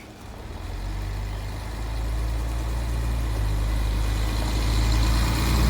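A motor vehicle's engine rumbling low and steadily, growing louder throughout as it draws nearer.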